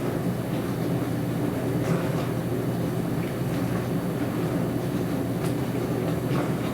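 Dishwasher running a wash cycle: a steady low hum and rumble of the pump and spraying water, with a few faint irregular ticks.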